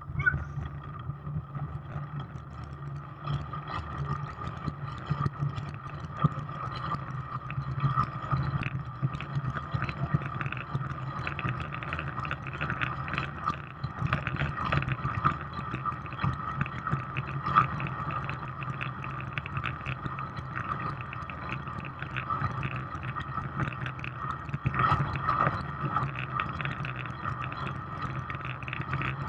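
Track bike riding flat out on a wooden velodrome, heard from a camera mounted on the bike: a steady droning hum from the tyres on the timber boards and the drivetrain, with a rush of air and faint ticking throughout.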